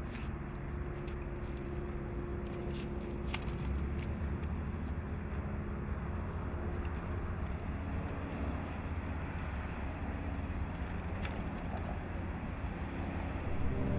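Steady low outdoor background rumble with a few sharp clicks and knocks from a bicycle being handled: two close together about three seconds in, and one more near the end.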